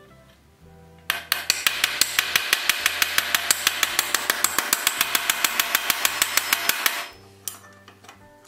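Rapid, steady ball-peen hammer taps on metal, about five a second for some six seconds, peening over the end of a bolt on a wagon's iron brake fitting while pliers hold it.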